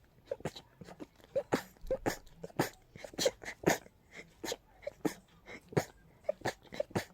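A person sneezing in a fast, unbroken run, about three to four short sneezes a second, with quick breaths between them: an allergic sneezing attack.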